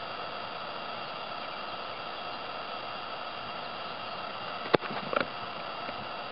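A football kicked for a long field goal off the ground from a small holder stand: one sharp thud of foot on ball about three-quarters of the way through, followed by a couple of quieter knocks, all over a steady background hiss.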